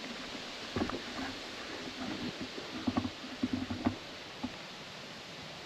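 Soft, irregular knocks and low bumps, clustered in the middle, over a steady faint hiss.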